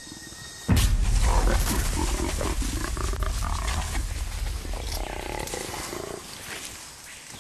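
A captured jaguar growling, loud and deep. It breaks out suddenly about a second in and fades away over the next several seconds.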